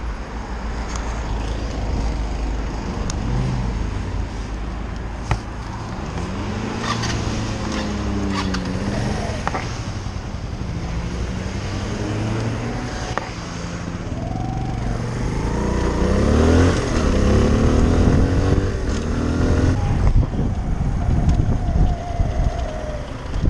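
Motorcycle engine heard from the rider's seat under a constant low rush of wind and road noise. The engine's pitch rises and falls a few times as the bike accelerates and changes gear, most clearly in the middle and again near two-thirds of the way through.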